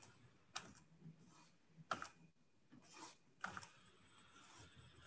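Near silence with a few faint, brief taps and scratches of a stylus on a pen-display tablet's screen as lines are drawn.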